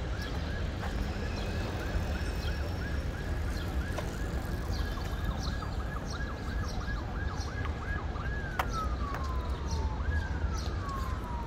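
Emergency vehicle siren sounding a fast yelp, about three sweeps a second, then switching near the end to two long wails that each fall in pitch over about two seconds. A steady low rumble of city background runs underneath.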